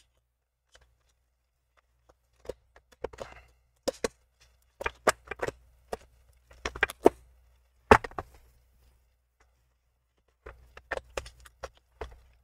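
Irregular plastic clicks, taps and knocks as a laptop's plastic hinge cover strip is handled and pushed against the hinge area while being fitted. They come in small clusters, with the single loudest knock about eight seconds in.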